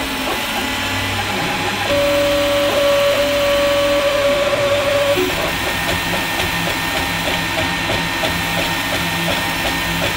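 Atomic U300 3D printer at work: its stepper motors sing in pitched tones that shift as the print head changes direction, with one tone held from about two to five seconds in, then a quick back-and-forth rhythm, over the steady hiss of the cooling fans.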